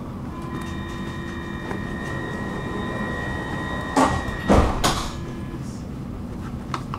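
Stockholm metro train's sliding doors closing, heard from inside the carriage: a steady multi-pitched warning tone sounds for about five seconds, and the doors shut with two heavy thumps about four seconds in.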